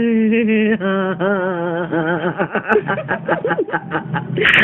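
A person's voice singing a drawn-out, wavering note, then breaking into short choppy syllables in the second half.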